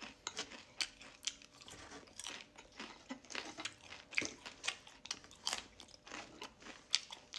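A person biting and chewing crisp deep-fried potato slices: quiet, irregular crunches, several a second, with mouth sounds between them.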